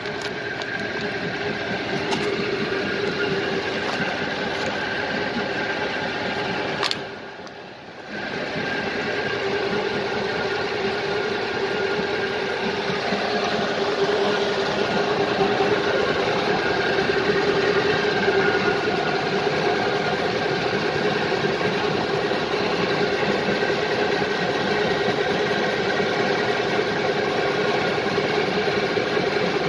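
Wheel loader's diesel engine running steadily, driving the hydraulic system while its pressure is checked with a gauge. The sound drops away briefly about seven seconds in.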